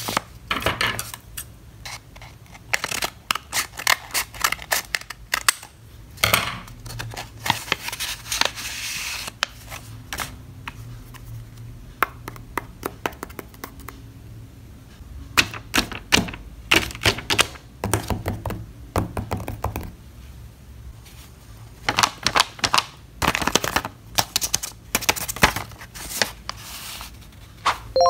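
Paper rustling and crinkling with sharp taps and clicks in irregular clusters, as a paper blind bag and its sticky-note pads are handled and set down on a table.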